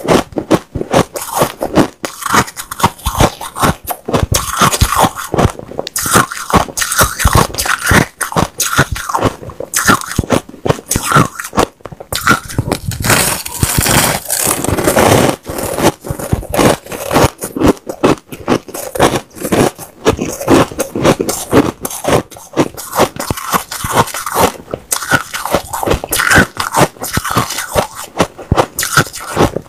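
Powdery white ice crunching as clumps are bitten and chewed, a rapid, continuous run of crisp crunches and scrapes.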